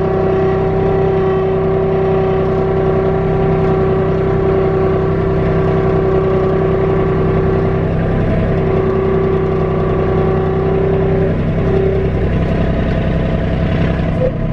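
Kubota B2650 tractor's three-cylinder diesel engine running steadily, heard from the cab. A strong steady whine rides over it, breaking off briefly about eight seconds in and stopping about twelve seconds in.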